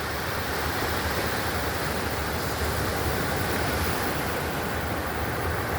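Atlantic Ocean surf breaking and washing on the beach: a steady rush of noise with a deep low rumble underneath.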